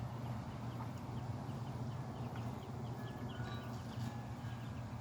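Many ducklings peeping, a steady patter of short, high, falling peeps over a steady low hum.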